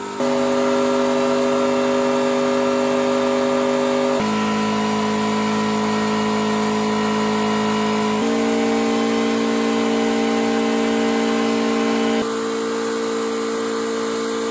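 Ferrari 308 GTS V8 engine running hard on a hub dyno, held at one steady high speed at a time, in the 6000–6800 rpm range. It jumps to a new steady pitch about every four seconds, the step-by-step speed hold of a steady-state power measurement.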